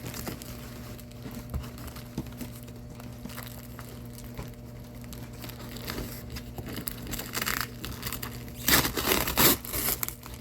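Cardboard shipping box being broken down by hand: cardboard crinkling and scraping with small creaks, then two loud rips of tape or cardboard tearing near the end.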